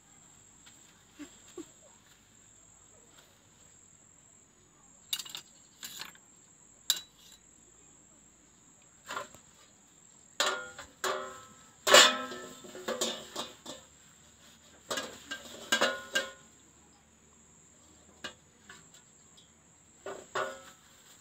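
Dishes being washed by hand: a plastic plate and steel tray and bowls knocking and clattering in scattered bursts, busiest in the middle, with the loudest knock about twelve seconds in. A steady high cricket trill runs underneath.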